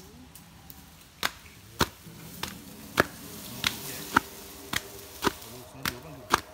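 Sharp hand slaps on an elephant's hide, about two a second at a fairly even pace.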